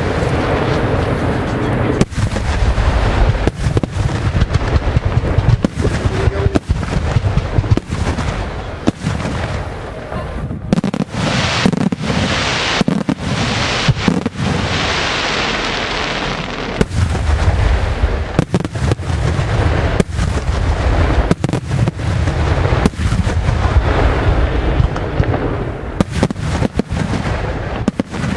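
Aerial firework shells bursting in rapid, continuous succession, a dense barrage of booms and bangs. A few seconds before the middle, a high hissing crackle takes over and the low booms thin out, before the heavy bangs return.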